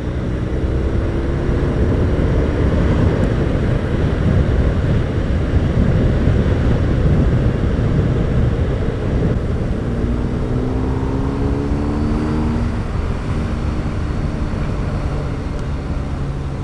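Motorcycle engine pulling hard under acceleration to overtake, under a heavy rush of wind noise; the engine note climbs about ten seconds in.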